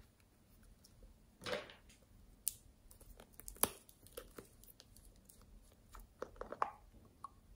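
Light plastic clicks and handling noises as hands work a squeeze tube and twist the cap off a small plastic bottle: a brief rustle about one and a half seconds in, a few sharp clicks, and a cluster of clicks near the end.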